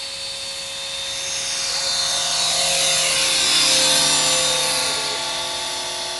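Engine of a Boehle's Giant model airplane running on its takeoff and climb-out. It grows louder as the model lifts off and passes close by about three to four seconds in, its pitch falling as it goes past, then eases off as it climbs away.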